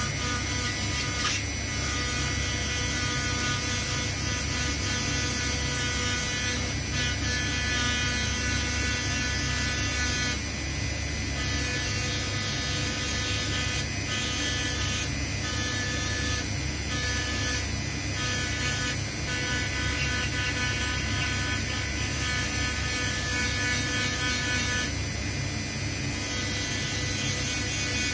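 Dremel rotary tool on a flexible shaft running at high speed, its bit engraving a pattern into a heat-blued metal knife band. A steady high whine whose tone shifts and breaks every few seconds as the bit works the metal.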